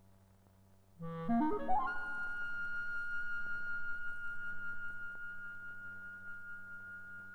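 Solo clarinet in the film's end-credits music: about a second in, a quick upward run of notes ending on a long held high note that slowly fades, over a steady low hum.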